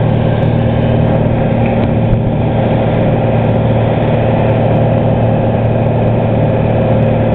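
Light aircraft's piston engine and propeller running steadily at cruise power, a constant drone heard from inside the cabin.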